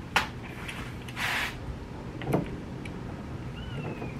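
Light clicks and knocks of a rivet gun and well nut being handled at a drilled hole in a car body panel, with a short rush of noise about a second in and a faint falling squeak near the end.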